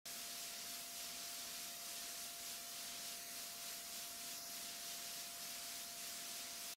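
Steady, faint background hiss with a thin continuous tone running under it, and no distinct events.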